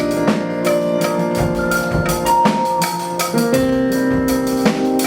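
Praise-and-worship band music without vocals: sustained keyboard chords over a steady drum-kit beat with bass drum and snare.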